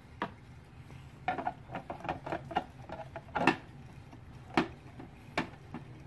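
A run of short clicks and light knocks from hard objects being handled. There is a single click at the start, then a quick cluster of clicks over about two seconds, ending in the loudest knock. Two more separate knocks follow near the end.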